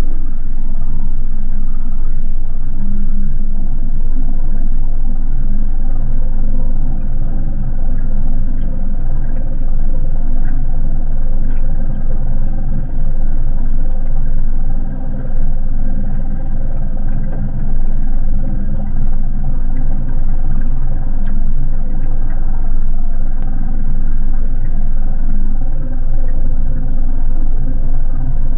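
Small outboard motor on an aluminium boat running loud and steady while towing a floatplane, its pitch holding even throughout.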